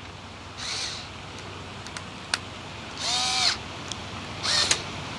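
A crow cawing three times, the middle call the longest, with one sharp click between the calls.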